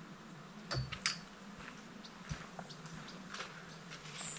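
Faint scattered clicks and a couple of light knocks about a second in, from a person moving about camp and settling into a folding camp chair, over a low steady hum.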